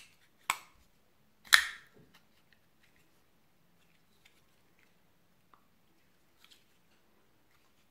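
Ganzo G7522 folding knife blade being snapped open and shut by hand: a sharp metallic click, another with a short ring about half a second in, and the loudest snap about a second and a half in, then a few faint clicks.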